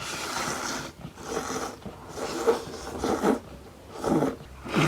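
Close-miked eating sounds: repeated bursts of slurping and chewing, roughly one a second.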